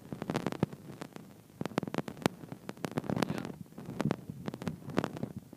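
Irregular sharp ticks and taps close to the microphone, a few a second, with no thunder rumble.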